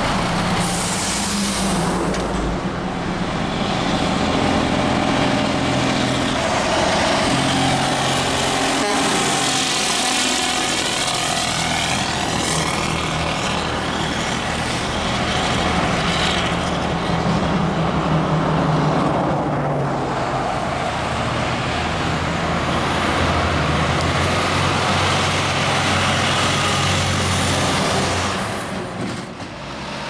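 Heavy diesel trucks passing along a road, their engine drone and tyre noise continuous and shifting in pitch, with a short hiss about a second in.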